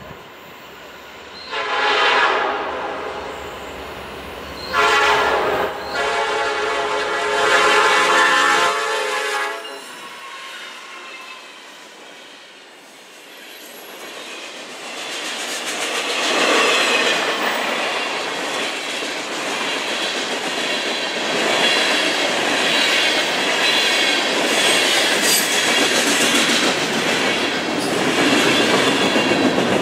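Diesel freight locomotive's air horn sounding three blasts, the last one longest, as the train approaches. From about halfway through, the freight cars roll past with a steady rumble and the clickety-clack of wheels over rail joints.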